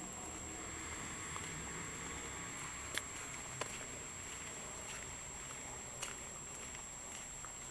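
Steady outdoor background noise with a faint, constant high-pitched whine, broken by three short sharp clicks about three, three and a half and six seconds in.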